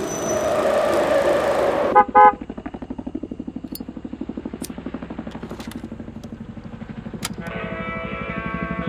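Film soundtrack: a rising noise swell that cuts off suddenly about two seconds in, followed at once by two short, very loud pitched blasts. A low, rapidly pulsing hum then runs on, and a guitar-led score comes in near the end.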